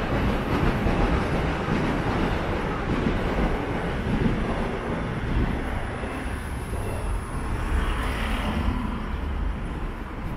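A passing train's steady rumble, slowly fading.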